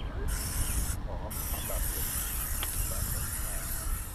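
Aerosol spray can hissing in two bursts, a short one and then a long one broken off about a second in, as spray is put on the legs.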